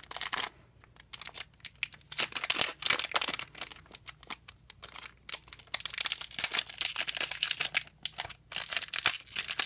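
Trading-card booster pack wrapper crinkling and tearing as it is worked open by hand, a dense run of irregular crackles.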